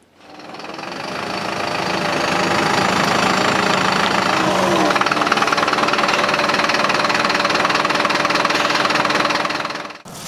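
Mercedes-Benz fire engine's diesel engine idling steadily. It fades in over the first couple of seconds and cuts off abruptly near the end.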